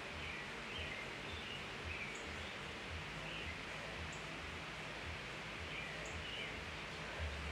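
Steady background hiss with faint bird chirps now and then, and a faint high tick about every two seconds.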